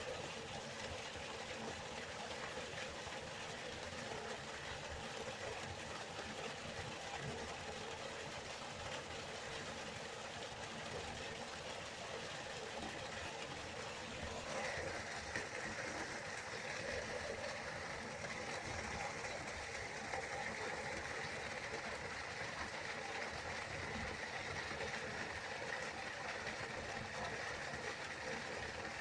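River water flowing, a steady rushing sound. About halfway through the sound turns brighter, with more hiss.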